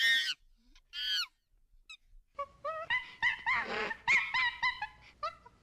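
A person imitating a monkey: a string of high-pitched "ooh-ooh-aah" hoots that bend up and down in pitch, two single calls at first, then a quick run of about a dozen.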